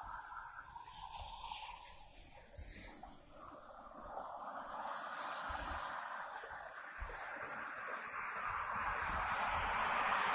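Steady high-pitched chorus of crickets, with a broad rushing noise building up through the second half.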